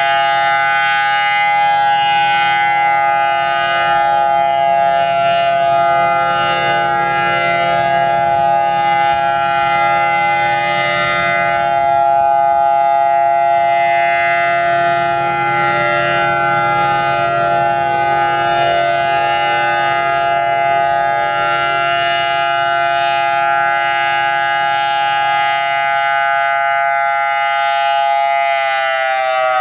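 Federal Signal Thunderbolt 1000AT tornado siren sounding a loud, steady tone made of several pitches together. Near the end it begins to wind down, its pitch falling.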